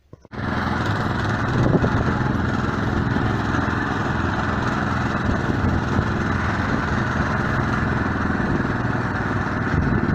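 A vehicle engine running steadily with a rush of wind noise over it. It cuts in abruptly at the very start and holds at an even level throughout.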